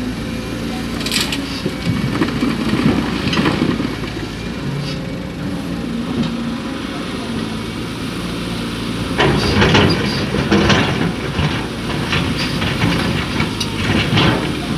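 Heavy diesel machinery engine running steadily, with louder rough rumbling stretches a couple of seconds in, again past the middle, and near the end.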